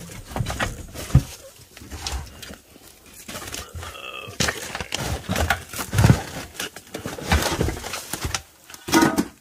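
Old boards and junk clattering and knocking as a steel wheel rim is dug out of a debris pile, with a sharp knock about a second in.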